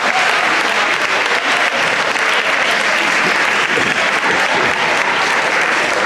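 Many people clapping at once, a steady dense applause.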